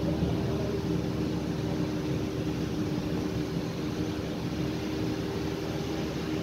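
Vehicle driving along an unpaved gravel road: a steady engine drone with two even tones over a low rumble of tyres on the dirt surface.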